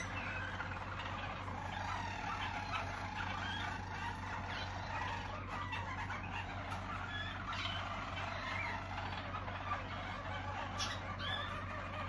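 Harzer Roller song canaries singing, several at once: continuous overlapping rolls and trills that never pause, over a low steady hum.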